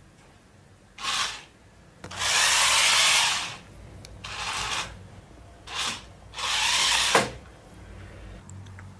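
Harsh scraping noises in five bursts: two short ones, then a long one of over a second, then three more, the last ending abruptly.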